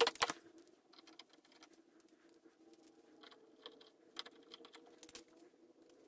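Light clicks and clinks of small steel chassis parts (frame, axle, sprocket) being handled and fitted together by gloved hands, the loudest cluster at the very start and scattered taps after, over a faint steady hum.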